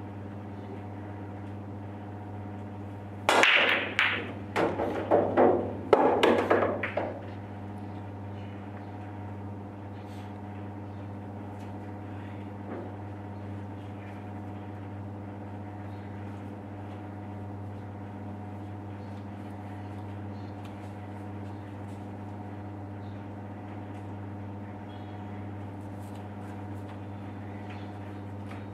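A 9-ball break on a pool table: a sharp crack of the cue ball into the racked balls about three seconds in, then about four seconds of balls clattering against each other and the cushions. A steady low hum runs underneath.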